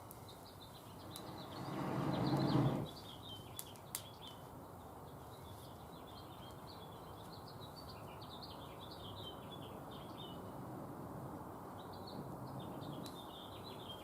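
Small birds chirping again and again over a steady low rush of outdoor noise. A louder rush swells up and cuts off about two and a half seconds in, and a couple of sharp clicks follow shortly after.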